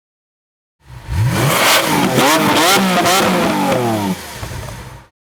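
Lamborghini Aventador LP700-4's 6.5-litre V12 engine coming to life about a second in with a sharp climb in revs, then revved several times, the pitch rising and falling, before dropping back near the end and fading out.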